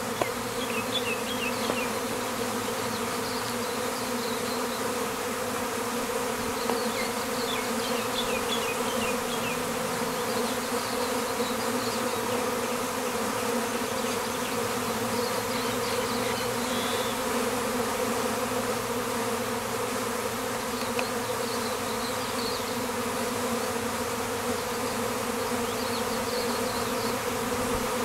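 Many honeybees humming together: a steady, even drone of wingbeats with a clear low pitch.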